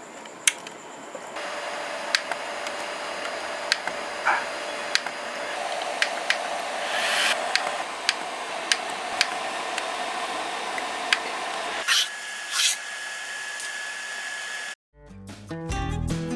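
Anycubic 3D printer starting a print: a steady fan hiss with a humming motor tone underneath and sharp clicks every second or so. Guitar music comes in near the end.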